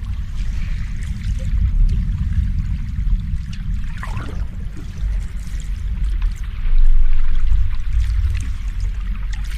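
Ocean waves washing in as a steady, deep low rumble of surf, one wave swelling louder about seven seconds in.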